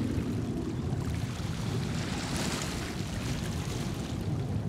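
Distant Boeing 737-400 with CFM56 turbofan engines climbing out after takeoff: a steady low jet rumble.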